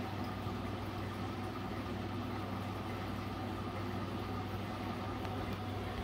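Steady electric hum of a small aquarium filter pump running, with a low drone and a faint even hiss that do not change.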